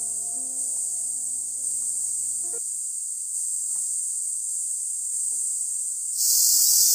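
Steady high-pitched drone of a chorus of insects (rātkide, the cicada-like insects of the hill forest), which gets louder near the end; soft background music with held notes plays under it for the first two and a half seconds.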